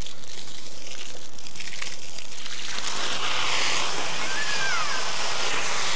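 Water splashing and sloshing in a small inflatable kiddie pool, a steady wash of noise that turns brighter and hissier about three seconds in.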